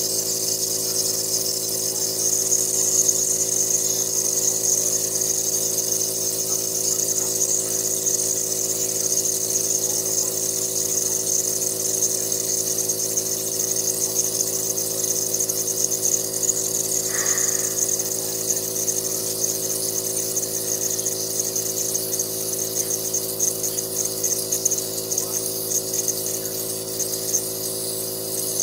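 Asthma nebulizer's compressor running with a steady hum and a hiss of air misting the medicine in the nebulizer cup.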